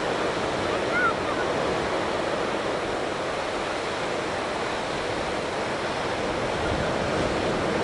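Ocean surf breaking on a sandy beach in a cove: a steady rushing wash of waves.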